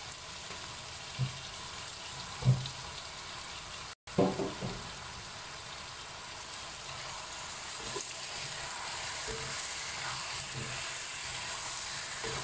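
Chicken pieces sizzling in a wok as sweet soy sauce (kicap) cooks in with chillies and onion, a steady frying hiss. The spatula knocks and scrapes against the wok now and then, sharpest about two and a half seconds in.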